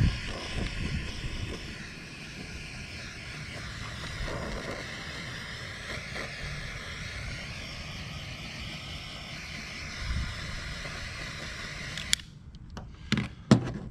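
Handheld butane torch burning with a steady hiss as it heats solder-seal heat-shrink wire connectors. The hiss stops abruptly about twelve seconds in, followed by two sharp clicks.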